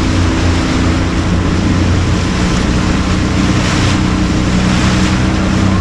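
Boat engine running steadily, its pitch shifting slightly about a second in, with wind on the microphone and water rushing past the hull.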